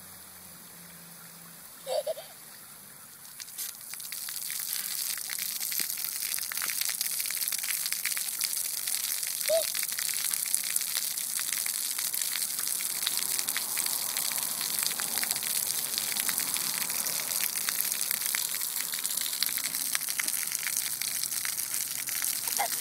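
Splash pad water jets spraying up from floor nozzles and splashing onto wet concrete, a steady hiss that comes on about four seconds in. A short high-pitched sound about two seconds in, and another near the middle.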